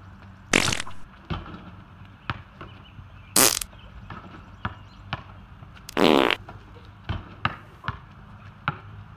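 Three loud fart sounds, about half a second in, around three and a half seconds in and around six seconds in, the last the longest. Between them, basketballs bounce on a concrete driveway with short sharp knocks.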